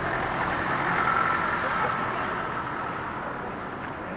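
Police car driving past close by, its engine and tyre noise swelling to a peak about a second in and then fading away.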